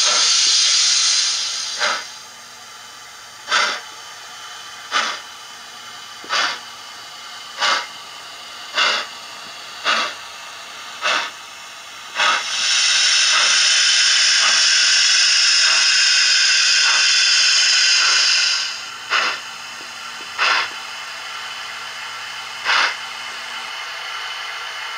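Sound decoder in a Hornby OO-scale LMS Class 5 (Black Five) model locomotive, playing steam-locomotive sounds through a bass-enhanced speaker. A burst of steam hiss gives way to slow, evenly spaced exhaust chuffs that quicken slightly, then a long steady hiss of about six seconds, then a few more chuffs.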